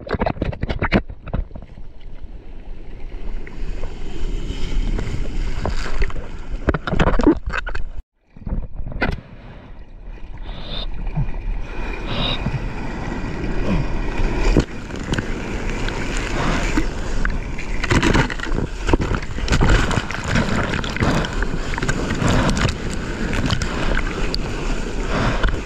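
Sea water sloshing and splashing around a camera held at water level on a bodyboard as the rider paddles through the surf, with wind on the microphone. The sound cuts out briefly about eight seconds in.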